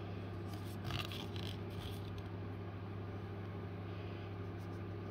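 Brief rustling and scraping about a second in as a cardboard eyeshadow palette is handled, over a steady low hum.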